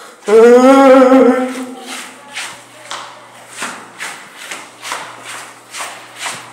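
A loud, drawn-out vocal cry lasting about a second, its pitch wavering slightly, followed by footsteps at about two a second.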